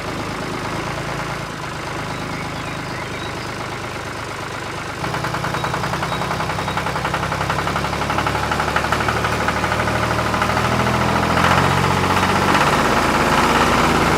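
An engine running steadily, stepping up louder about five seconds in and growing a little louder toward the end.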